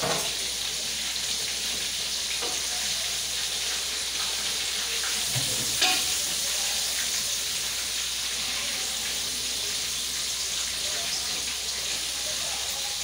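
Food sizzling as it fries in a pan: a steady hiss, with a few light knocks, the loudest about six seconds in.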